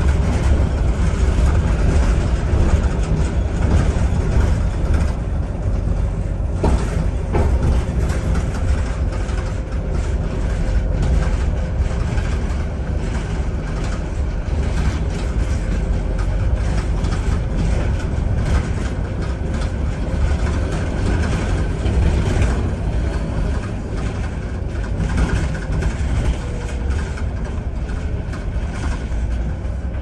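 Cabin noise inside a double-decker bus, heard from the upper deck: a steady low rumble from the engine and running gear, with a faint high whine held through most of the stretch and a single knock about seven seconds in.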